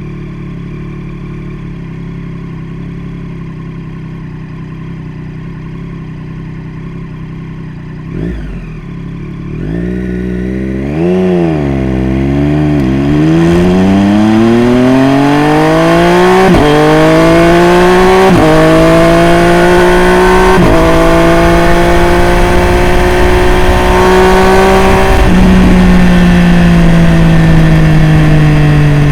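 Triumph Street Triple RS's three-cylinder engine through a Jeskap full exhaust idling steadily, then blipped a few times. It pulls away, its note rising through four upshifts, each a brief sharp dip, and then holds speed with the note easing slowly down near the end.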